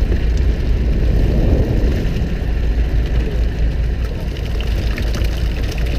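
Small fishing boat's engine running with a steady low rumble, with scattered knocks and rattles of the net and catch being hauled aboard, more of them near the end.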